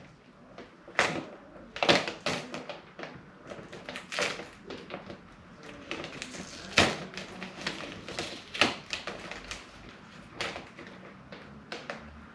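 Irregular clicking, tapping and knocking from hand work on car parts, with a few sharper knocks about a second in, about two seconds in and near the middle.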